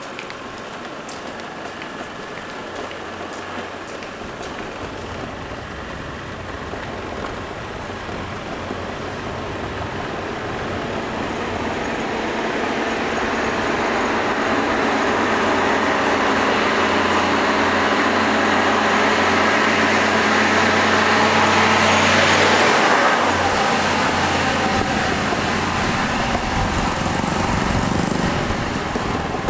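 A truck approaching and passing on the road. Its engine and tyre noise builds slowly to a peak a little past twenty seconds in, then falls away.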